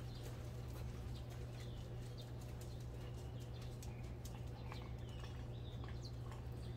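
Outdoor background with a steady low hum, faint bird chirps and scattered light clicks.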